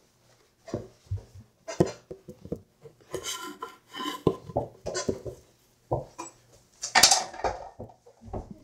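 Irregular knocks, thumps and rustling from scuffling play around an over-the-door mini basketball hoop, with the handheld camera being jostled. The loudest knock comes about seven seconds in.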